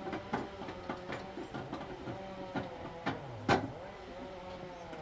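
Sawmill engine idling steadily, with scattered metal knocks and clanks as the log is clamped in place with log dogs; one sharp, loud knock about three and a half seconds in.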